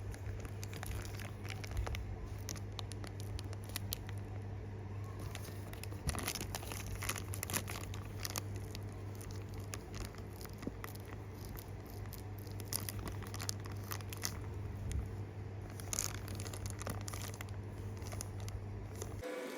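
Plastic packaging crinkling and rustling in the hands as a small miniature item is unwrapped, with scattered small clicks and taps. A steady low hum runs underneath.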